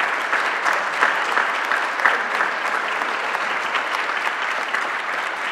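Audience applauding, many hands clapping steadily and easing off slightly near the end.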